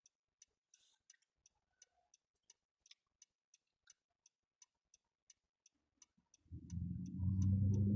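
Car turn-signal indicator ticking steadily, about three clicks a second. About six and a half seconds in, a louder low sound with a steady hum comes in.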